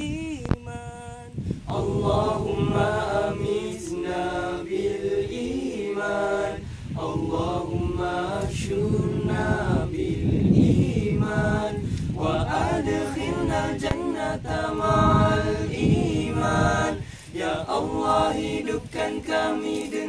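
A group of men singing a Malay devotional nasyid a cappella in several-part harmony, in phrases of a few seconds with short breaths between them.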